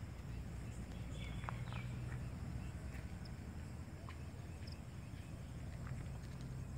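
Footsteps: scattered faint clicks over a low steady rumble, with a few short high chirps.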